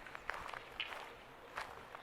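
Footsteps of a person walking, about three steps.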